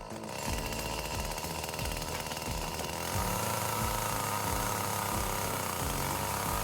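Two-stroke chainsaw running under load, cutting through wood, with a steady engine whine that rises slightly in pitch about halfway through.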